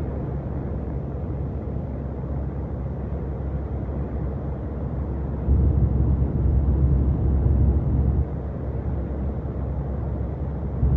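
Steady low drone of a MAN TGX 480 truck cruising on a motorway, with engine and road noise heard from inside the cab. Past the middle the low rumble grows noticeably louder for about three seconds, then drops back.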